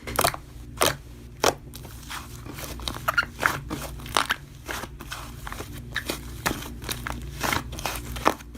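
Slime being squished and pressed by hand, giving irregular crackling clicks and pops, several a second, at uneven spacing.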